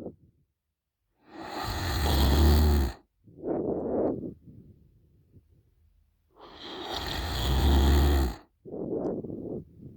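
A young woman snoring loudly through an open mouth while deeply asleep. Two long snores about five seconds apart, each growing louder with a deep rattle, and each followed about half a second later by a shorter, softer breath.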